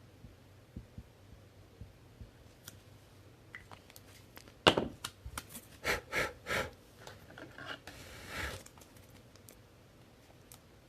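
Trading cards and plastic card sleeves being handled: scattered light clicks, one sharp click about halfway through, a quick run of clicks just after it, and a brief soft rustle later on.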